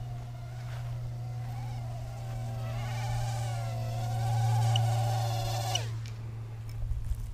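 Micro quadcopter's four 8 mm 0820-15 motors and propellers whining in flight, wavering in pitch and growing louder as it comes in close. About six seconds in the motors cut and spin down with a falling whine as the quad is landed in the hand. A steady low hum runs underneath.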